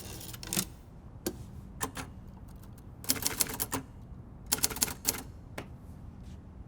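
Hermes manual typewriter clicking and clacking in short irregular runs, busiest about three and five seconds in, as its carriage is moved freely after the carriage lock is released.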